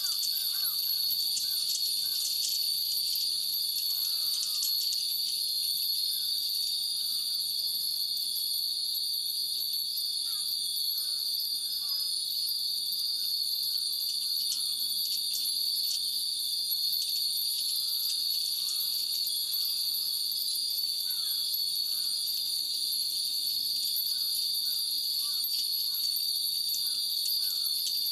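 Many metal wind bells (fūrin) tinkling and ringing irregularly in the breeze over a steady high drone of cicadas. Faint short chirps come and go.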